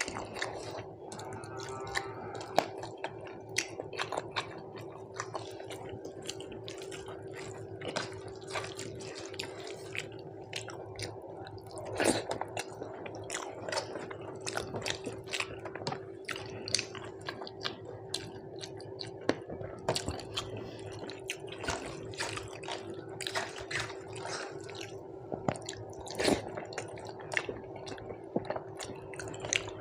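Close-miked eating: wet chewing and squishing of rice and dal, with many small smacks and clicks, over a steady low hum.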